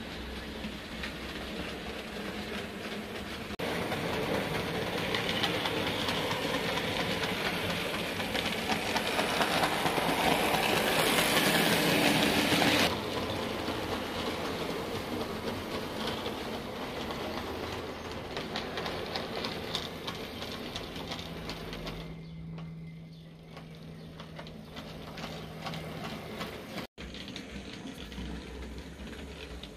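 00 gauge model train running on the layout's track: a steady mechanical whirr and rattle of motor and wheels on the rails. It gets louder about four seconds in and cuts off suddenly at about thirteen seconds, giving way to a quieter run with a steady low hum.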